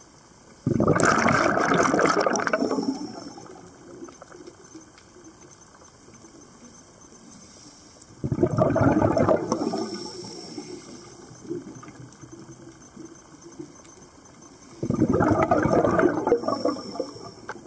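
Scuba diver's exhaled breath bubbling out of the regulator underwater, in three rushing bursts about seven seconds apart, each lasting around two seconds. Faint crackling in the water between the breaths.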